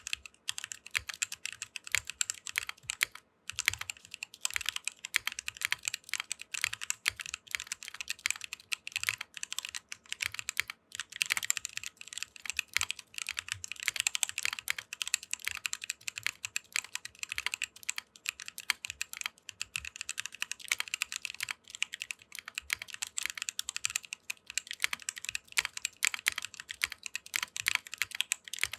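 Continuous fast typing on a 60% aluminium-case mechanical keyboard with Krytox 205g0-lubed Kailh Speed Copper tactile switches and DSA PBT keycaps: a dense stream of crisp keystroke clicks, with brief pauses about three and eleven seconds in.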